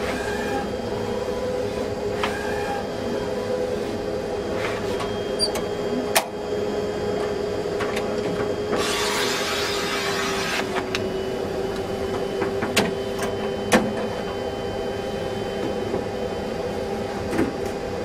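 HP large-format plotter printing on roll paper: a steady motor whine with mechanical running noise, a rushing hiss about nine seconds in that lasts about two seconds, and a few sharp clicks.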